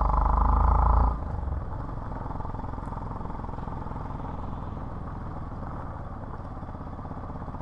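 Motorcycle engine running while riding a rough gravel track. It is louder for about the first second, then drops suddenly to a lower, steady running note.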